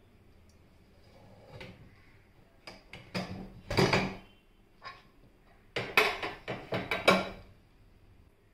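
Stainless steel pressure cooker lid being worked loose and lifted off, its pressure already released. It gives a few metal clicks and scrapes around three to four seconds in, then a quick cluster of clanks about six to seven seconds in.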